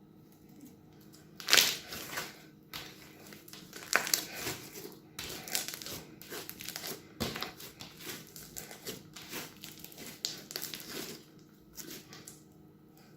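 Crunchy slime squeezed and worked in a plastic piping bag, giving an irregular run of crackling, crinkling crunches. They start about a second and a half in, the first being the loudest, and die away near the end.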